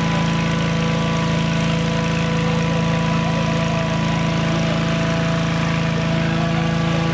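Engine-driven inflator fan running steadily, blowing cold air into a hot-air balloon envelope during cold inflation.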